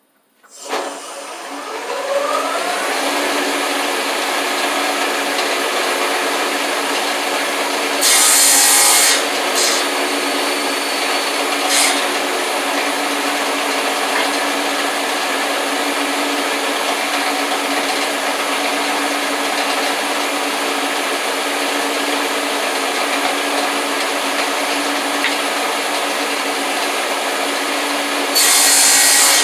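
Power saw motor spinning up with a rising whine, then running steadily. The blade cuts through wood twice, about eight seconds in and again near the end, each cut briefly louder.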